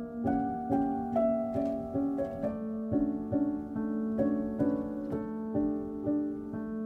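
Soft instrumental background music: short plucked notes, about two a second, over a held low note.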